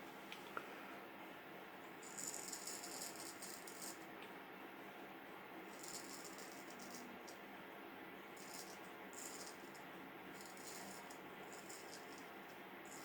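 Vintage Norton straight razor scraping through beard stubble: a faint, crackly rasp in a series of irregular strokes, the longest about two seconds in.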